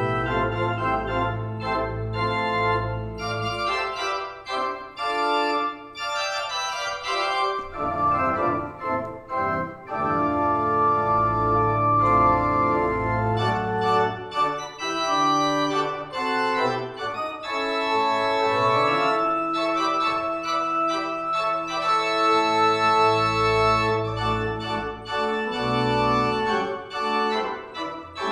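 Organ playing a slow piece of sustained chords over deep pedal bass notes, the postlude at the close of a church service.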